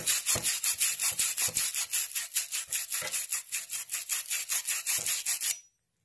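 Copper pipe end being scoured in a wire-bristle pipe-cleaning brush, a quick, even run of rasping strokes at about six or seven a second that stops near the end. The pipe is being cleaned to bright metal so the joint can be soldered.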